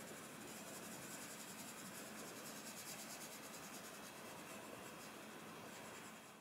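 Colored pencil scratching faintly and steadily on paper as a drawing is shaded in.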